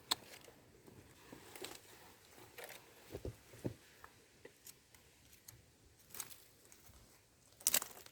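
Faint, scattered crackles and rustles of dry leaf litter being disturbed, with a louder rustling crackle near the end.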